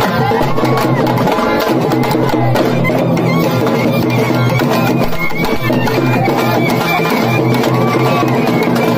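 Tamil folk music for karakattam dancing, played live: thappu (parai) frame drums beaten with sticks in fast, dense strokes, with a melody that slides up and down over them.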